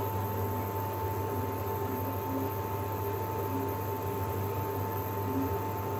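Steady low hum with an even hiss and a faint thin whine. No distinct sounds from the hands working.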